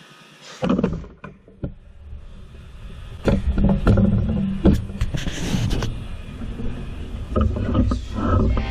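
Handling noise from a GoPro being picked up and repositioned: scattered knocks and rubbing on the camera body, then a low rumble with more knocks from about three seconds in.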